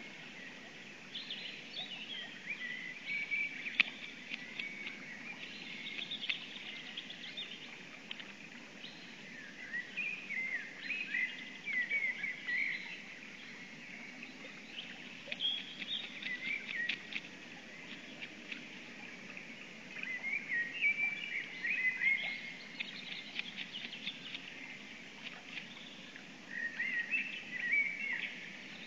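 A songbird singing in short bouts of quick chirping notes, a phrase every five seconds or so, over a steady background hiss from the outdoor nest-camera microphone. One sharp click sounds about four seconds in.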